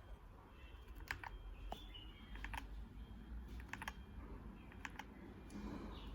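Keys being pressed on an MK66 mechanical keyboard with milky yellow switches in a brass plate, under red samurai keycaps: a scatter of irregular, faint clacks, some coming in quick pairs.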